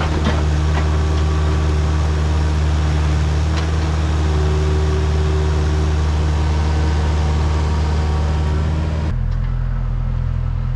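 Diesel engine of a piece of compact construction equipment running steadily, with a few light knocks near the start. The sound changes abruptly about nine seconds in, the hiss dropping away while the low engine hum goes on.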